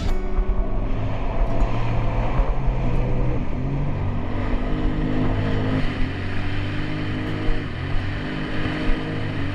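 Personal watercraft engine running at speed, its pitch holding steady and dipping briefly a few times as the throttle eases and comes back.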